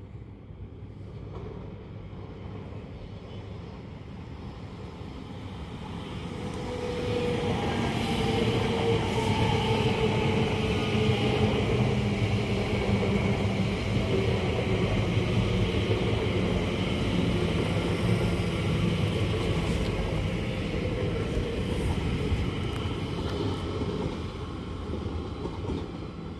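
A train passing on the main line: it builds up about six seconds in, runs loudly past for well over ten seconds with a tone that slowly falls in pitch, and fades near the end.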